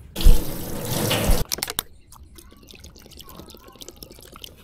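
Water splashing for about a second, then a few drips falling back.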